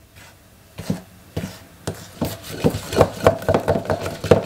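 Spatula beating softened butter and icing sugar in a stainless steel bowl, the blade knocking and scraping against the ringing metal. It starts with a few separate strokes, then from about halfway turns to quick, steady beating at several strokes a second.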